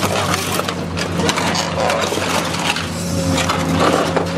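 Car dismantling machine tearing and crushing the sheet-metal body of a scrap car, with continual crunching, snapping and clattering of metal over the steady hum of its engine. A thin whine comes in during the second half.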